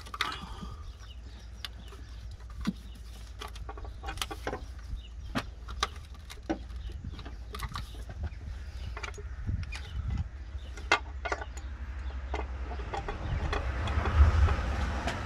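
Scattered sharp clicks and small knocks of hands and tools working on engine parts in a cramped engine bay, over a steady low hum. A rustling, rumbling noise swells near the end.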